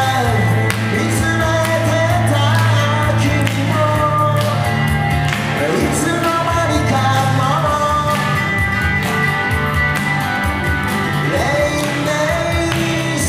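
A live song: a singer's voice with hollow-body electric guitar accompaniment, amplified through PA speakers, with steady low notes under the melody.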